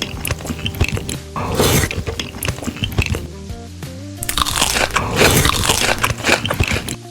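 Crunchy food being bitten and chewed in several spells, the loudest about 4 to 6 seconds in, over background music.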